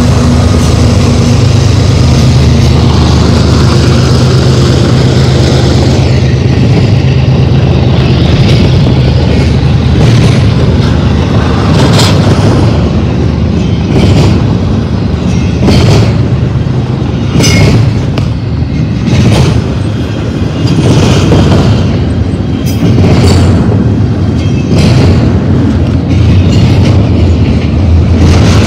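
A double-stack container train passing close by. At first the engine drone of its trailing BNSF diesel locomotive is heard, fading over the first several seconds. Then the well cars roll past with a heavy low rumble and repeated sharp clacks as their wheels cross the rail.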